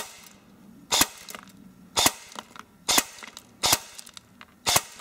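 Ares Amoeba Honey Badger AEG airsoft rifle firing single shots through a chronograph: six sharp shots about a second apart.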